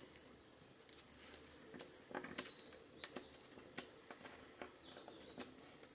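Near-quiet room with a few faint, short, high chirps of a bird spread through, and soft taps of fingers pressing clay on a plastic sheet.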